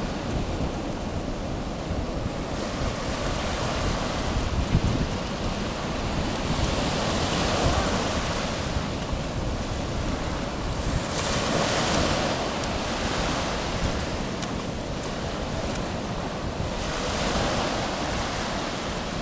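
Sea waves breaking on the shore, swelling and washing in every few seconds, with wind buffeting the microphone.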